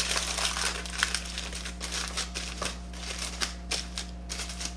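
Aluminum foil crinkling and crackling as it is crimped and pressed by hand around the outside of a cheesecake pan, in irregular crackles that thin out near the end.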